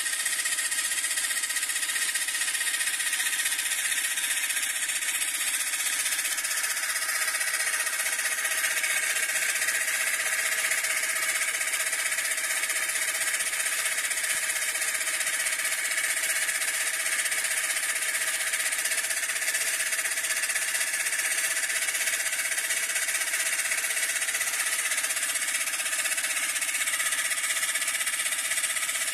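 Homemade car air compressor, a refrigerator compressor driven by a car heater-fan motor, running steadily while it pumps air.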